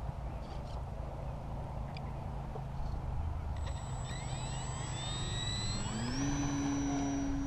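Electric motor and propeller of a Parkzone Focke-Wulf Fw 190A model plane spooling up for takeoff: a whine rising in pitch from about three and a half seconds in, then holding a steady pitch at full throttle from about six seconds in. A low rumble, likely wind on the microphone, runs underneath.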